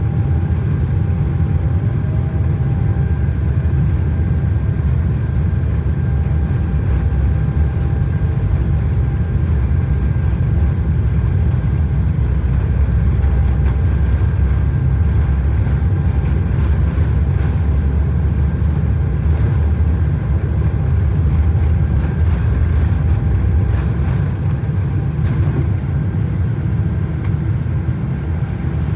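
Boeing 777-300ER engine and airframe noise heard inside the cabin: a steady, loud low rumble with a faint high engine whine over it.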